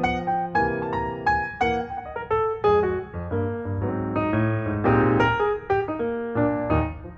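Background piano music: a run of quick notes over a steady bass.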